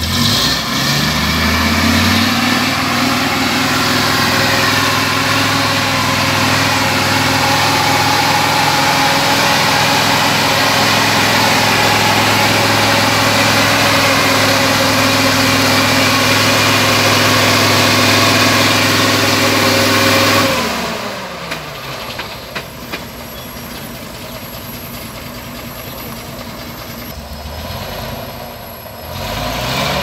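Diesel engine of a log-laden logging truck running hard at steady high revs as it labours up a wet, muddy road where it struggles for grip. About two-thirds of the way through the revs fall away and the engine settles to a quieter, lower running.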